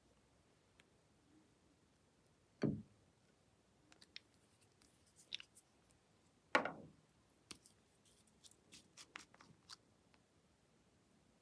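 Quiet handling of small nail polish bottles: two soft knocks a few seconds apart, then a run of small clicks and taps as a brush cap is worked open.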